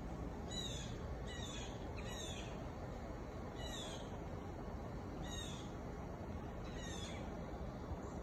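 A bird giving six short, high calls, each sliding downward, spaced unevenly about one to one and a half seconds apart, over a steady low background rumble.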